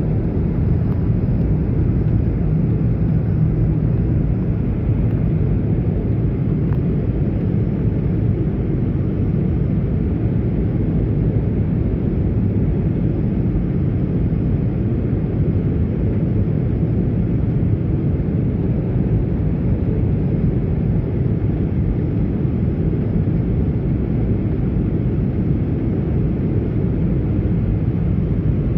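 Steady low noise of an airliner in flight: engines and rushing air, even throughout with no touchdown thump.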